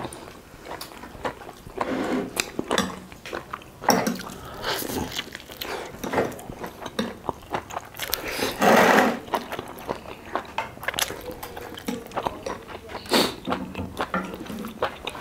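Close-miked eating of roasted duck and noodle soup: biting and chewing, with scattered sharp clicks of a fork in a glass bowl. A louder noisy burst comes about nine seconds in, and a shorter one near the end.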